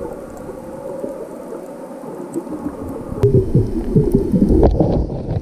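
Muffled underwater sound picked up by a camera held under the sea: low rumbling water movement, then from about three seconds in a run of louder, irregular low thumps as the camera is moved in among the stones.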